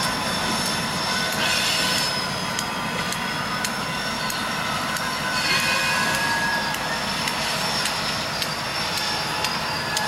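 Railroad crossing bell ringing in a steady, repeating strike while the flashers run, over the high, held squeal of train wheels and a low rumble as the train moves away from the crossing.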